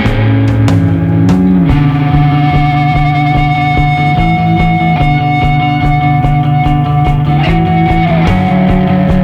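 Background rock music with electric guitar, sustained notes and a steady drum beat.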